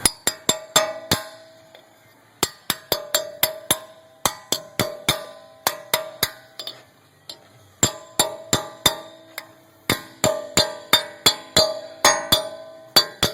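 Rapid metal taps on a wheel hub's dust cap to seat it over the axle nut. Each tap rings with a clear metallic tone, in runs of about three a second with short pauses between them.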